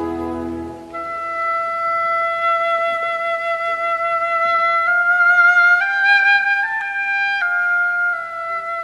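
Background music: a low chord that fades out about a second in, then a slow melody of long held notes that steps up in pitch a few times in the middle and settles back down near the end.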